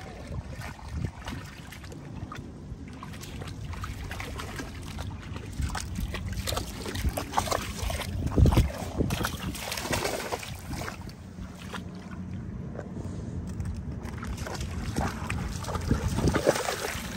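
Water sloshing and splashing in uneven bursts, loudest about halfway through.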